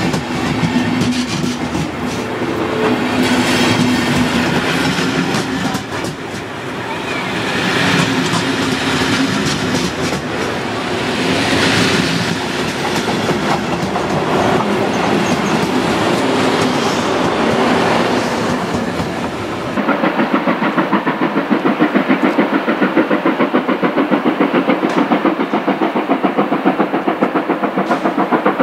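Passenger coaches rolling past with clattering wheels over the rail joints. About twenty seconds in, this gives way to the regular exhaust beats of steam locomotive 41 096 pulling away, about three beats a second.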